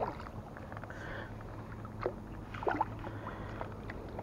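Hooked peacock bass splashing at the surface beside a kayak as it is reeled in: a few short splashes, one at the start, one about two seconds in and two close together a little later, over a faint steady low hum.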